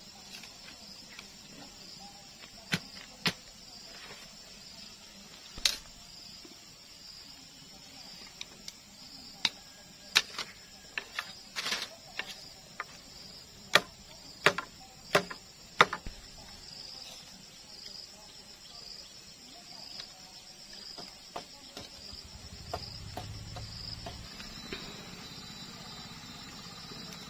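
A machete chopping and cutting dry palm fronds: irregular sharp knocks and crackles, most of them in the first half or so, fainter later. Insects chirr steadily behind.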